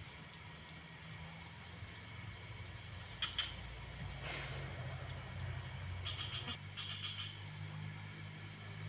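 Outdoor ambience: a steady high-pitched insect drone over a low hum, with two brief clicks a little past three seconds in and a few short chirps later on.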